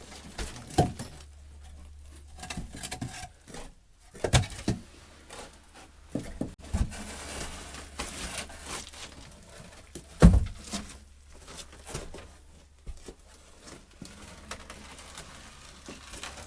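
Arch former being worked loose and pulled out from under a stone arch: scattered knocks and thumps, the loudest about ten seconds in, with a stretch of scraping in the middle.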